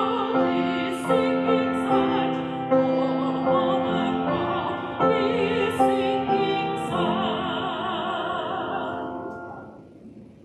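A woman soloist singing a hymn with vibrato over an instrumental accompaniment, ending on a long held note from about seven seconds in that dies away shortly before the end.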